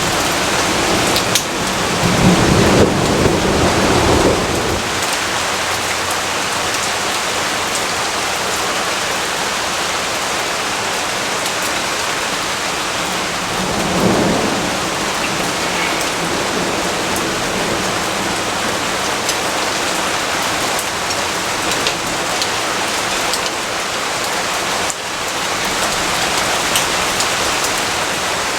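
Steady rain falling, an even hiss throughout. A low rumble of thunder swells about two seconds in and lasts a couple of seconds, and a shorter, fainter rumble follows about halfway through.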